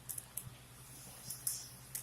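Rubik's Cube being turned by hand during a speed solve: a few light, scattered plastic clicks as its layers are twisted.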